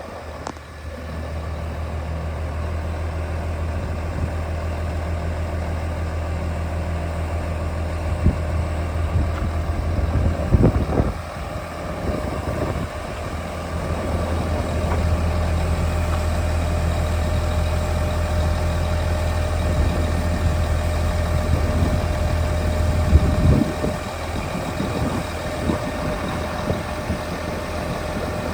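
Diesel engine of a Daewoo concrete pump truck running steadily at a low hum, with a few knocks about ten seconds in and again near the end, after which it runs a little quieter.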